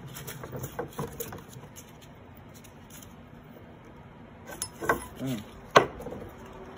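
Workshop handling clatter from a Toyota 18R cylinder head and a steel socket on a wooden bench: a few light clicks, then several knocks as the head is shifted and tipped over, ending with one sharp metallic clack about six seconds in.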